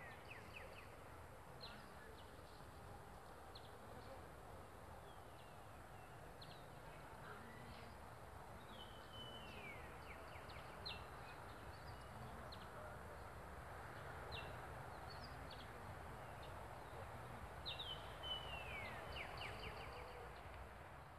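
Faint outdoor ambience with scattered bird chirps: short high notes here and there, and twice a call that slides down in pitch, over a low steady background noise.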